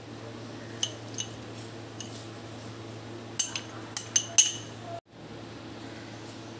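Light glassy clinks of small glass bowls knocking against the rim of a cooking pot and each other as ingredients are tipped in, a few about a second in and a quick cluster of louder ones around four seconds, over a steady low hum.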